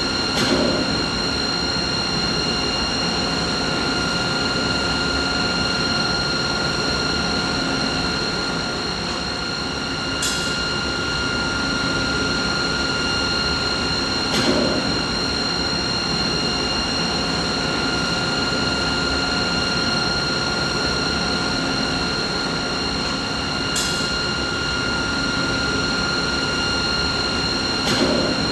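Steady machinery noise: a constant whine with several overtones over an even rushing noise. A few brief clicks and soft knocks come at irregular intervals.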